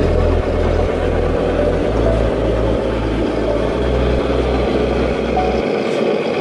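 Steady engine-like running of RC model trucks, under a pulsing background-music bass line that changes note about every half second and stops about five and a half seconds in.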